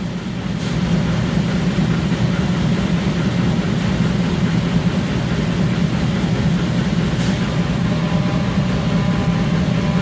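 Steady low drone of warehouse machinery running, with a couple of faint clicks.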